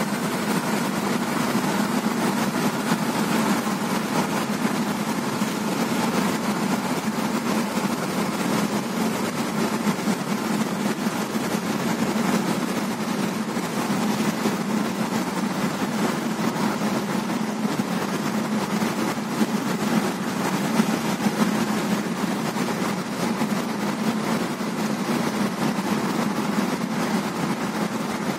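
Steady cabin noise of a car driving on a paved expressway: engine hum and tyre roar, even throughout with no gear changes or other events.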